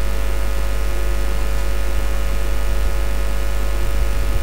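Steady electrical mains hum and buzz: a low drone with many steady overtones over a constant hiss.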